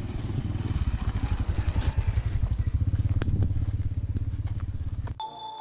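Small scooter engine running at low speed as it rides across a wooden-plank suspension bridge. It grows louder as it passes close by, with a few sharp knocks from the deck planks. The engine sound cuts off abruptly about five seconds in.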